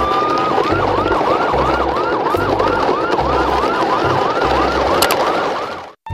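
Emergency siren sound effect: a single wail rising slowly for the first half second, then a fast yelp of about three rising sweeps a second, over a low pulsing hum. It cuts out just before the end and starts a new rising wail.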